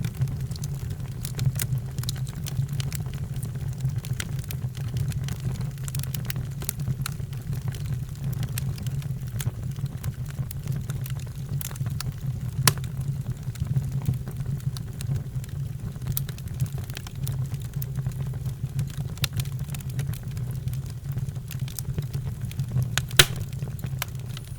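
Wood fire crackling in a fireplace: scattered sharp pops and snaps, two of them louder (about halfway and near the end), over a steady low rumble.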